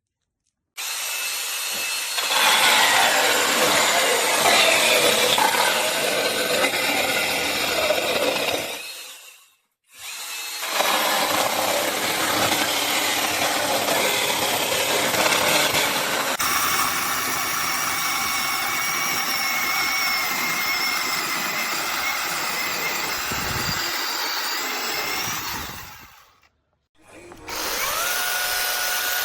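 Brushless battery mini chainsaw cutting wood, in two long stretches that each stop abruptly. Near the end the motor runs steadily with a whine that rises briefly as it starts.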